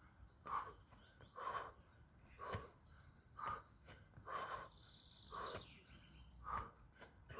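A man breathing hard during burpees, short, heavy breaths about once a second. Birds chirp faintly in the background.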